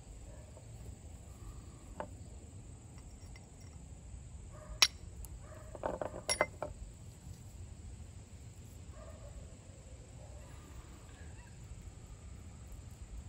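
Flint and steel being struck to throw sparks onto charred punk wood: a light click, then one sharp metallic clink about five seconds in and a quick run of strikes a second later.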